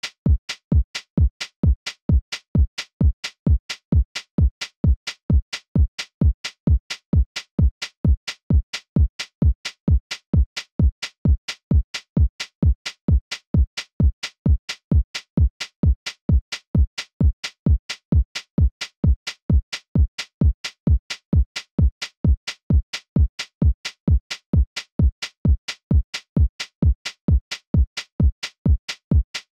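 Sparse drum-machine timing track at 131 beats per minute: a bass hit alternating with a quieter hi-hat, repeating evenly with nothing else in the mix.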